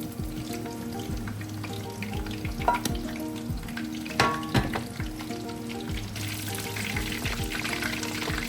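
Food frying and sizzling in a pan, the sizzle growing louder about two-thirds of the way in, with a few sharp clinks of a utensil against the pan or dish about midway.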